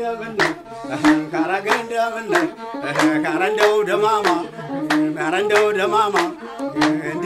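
Background music: a man singing a held, wavering melody over a steady beat of sharp strikes, about two a second.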